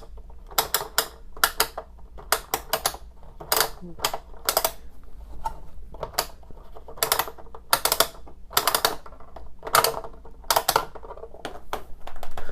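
Small plastic toy gumball machine and its plastic capsule being handled: sharp plastic clicks and clatters, coming in quick clusters of two or three about every half second to a second.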